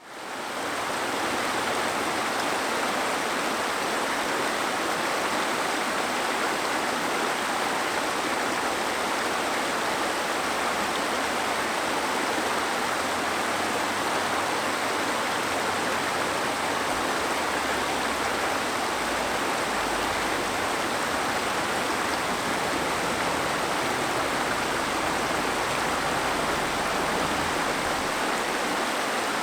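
Waterfall with water rushing steadily over rocks, an even, unbroken noise that fades in at the very start.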